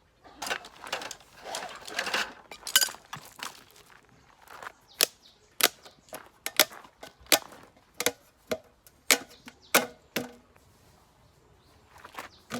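Rustling and handling noise, then a series of sharp knocks, one to two a second for several seconds.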